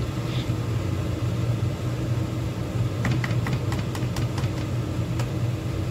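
Wooden spatula stirring crab in coconut-milk gravy in a metal pot, with a run of light clicks about halfway through as it knocks against the pot and crab shells. A steady low hum underlies it.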